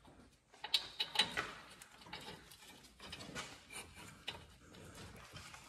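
Front brake caliper bracket, loaded with pads, being slid over the rotor and fitted onto the steering knuckle: scattered light metal clicks and scrapes, the loudest about a second in.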